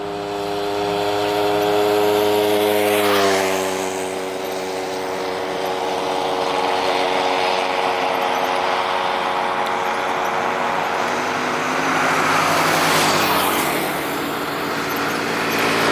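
Motor vehicles passing by, one after another: the first goes past about three seconds in, its engine note dropping in pitch as it passes, and another swells past about three-quarters of the way through.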